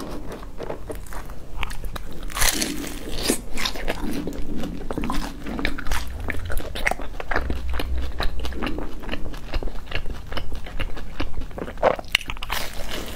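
Crisp crust of deep-fried round cakes crackling and crunching as they are handled and torn apart by hand, close to a clip-on microphone, with a loud crunchy bite near the end.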